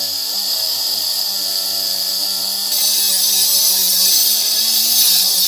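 Small cordless power tool motor running steadily with a high whine and hiss, the noise getting louder and harsher about three seconds in as the tool works on a cable.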